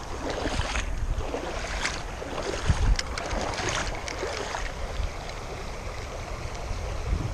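Creek water running, with wind buffeting the microphone and a few faint clicks.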